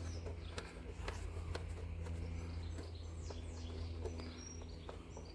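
Light, scattered clicks and taps of hand tools and bolts against the engine's timing cover, over a steady low hum. A few short bird chirps come through about three to four seconds in.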